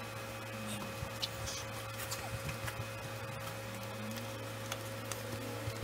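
Steady low electrical hum with scattered light clicks and taps from hands working frog legs in a bowl of flour.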